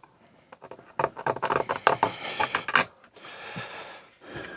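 A 3D-printed PETG plastic case being handled: a quick run of small plastic clicks and rubbing, then softer scraping near the end.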